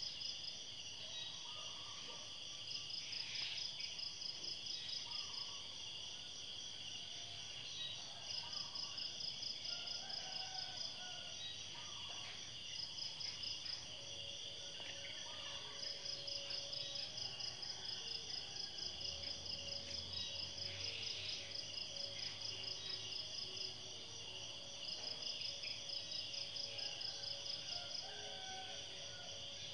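Insects chirping: a steady high hiss with a rapid pulsing trill that starts and stops in bouts of a few seconds.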